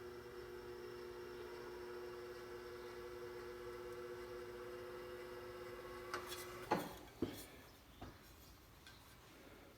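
Electric motor of a powered bead roller running with a steady hum, shutting off about two-thirds of the way in with a sharp clunk. A few metal knocks follow as the sheet-metal panel is handled.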